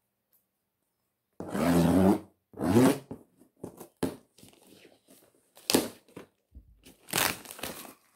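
A cardboard shipping box being torn open: two long tearing rips, the first about a second and a half in, then shorter crackles and rustles of the packaging.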